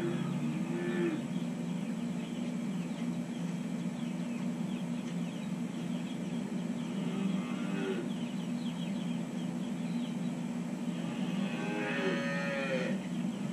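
Holstein calves mooing: three calls, a short one at the start, another about seven seconds in and a longer one near the end, over a steady low hum.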